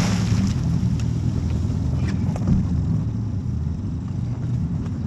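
Boat motor running steadily with a low hum, with a couple of faint clicks about two seconds in.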